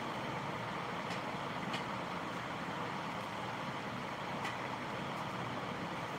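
A steady rushing background noise, with a few faint clicks of a knife cutting through small pieces of vegetable held against the thumb.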